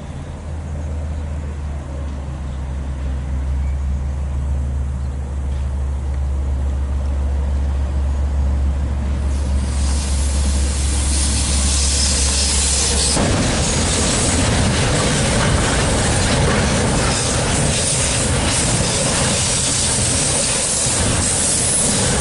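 A KiwiRail DL class diesel-electric locomotive approaches with a steady low engine drone. From about halfway, a container freight train passes close by in a loud, even rush of wheel and wagon noise.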